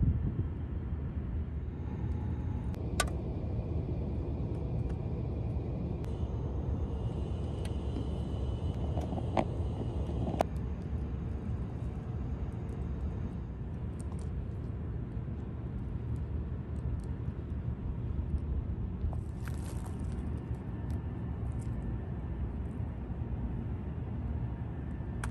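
Rocket stove burning down to embers: a steady low rumble with a few sharp crackles, about three, nine and ten seconds in.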